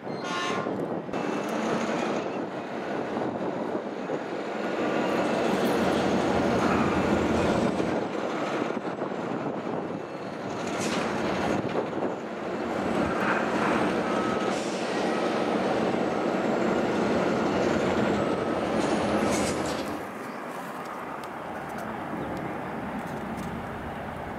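Diesel-hauled grain trains running past: locomotive engine rumble and the steady rolling noise of wagons on the rails, with a train horn dying away right at the start and a faint, wavering high whine over the noise. About twenty seconds in it drops to a quieter, more distant train.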